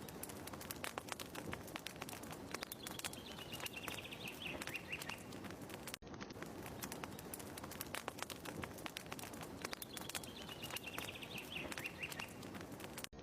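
Fire crackling with many small pops over a steady hiss, and a bird's short falling trill about three seconds in. The same trill comes again about seven seconds later, because the ambience is a short loop that restarts with a brief dropout.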